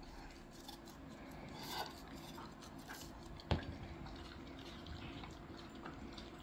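A dog licking and chewing an ice pop: faint wet smacks and small clicks, with one sharper click about three and a half seconds in.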